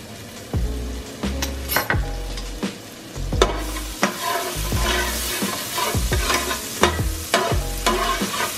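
Minced garlic sizzling in melted butter in a nonstick frying pan while a spatula stirs and spreads it. The sizzle grows louder a few seconds in.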